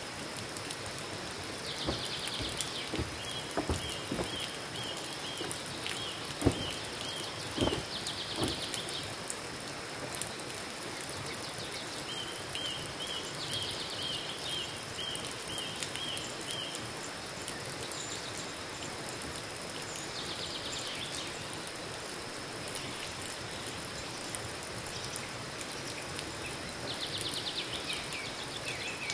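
Forest ambience: a steady insect drone with a bird singing a short song about every six seconds, a buzzy phrase joined by a run of short clear notes. A few thumps in the first eight seconds.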